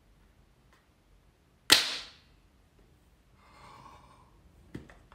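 Dexcom G7 sensor applicator firing with one loud, sharp snap as it drives the sensor into the upper arm. About two seconds later comes a short startled gasp, then a smaller click near the end.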